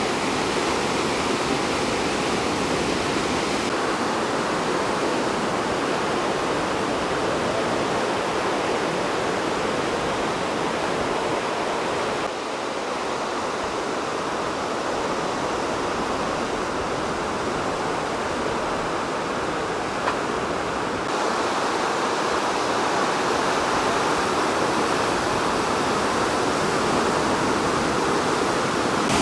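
River water rushing and cascading through eroded rock potholes in a gorge, a steady loud white-water rush. It dips slightly about twelve seconds in and rises again later.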